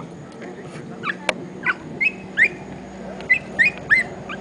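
Short, high animal calls, about a dozen in quick, irregular succession, each swooping up or down in pitch. There is one sharp click about a second in.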